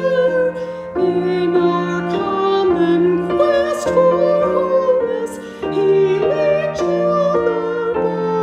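A hymn being sung over keyboard accompaniment, the voice holding long notes with vibrato over sustained chords that change about once a second.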